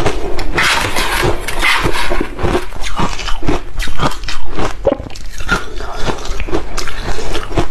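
Close-miked chewing of a big mouthful of crushed ice: a dense run of crisp crunches in the first couple of seconds, then separate, spaced crunches.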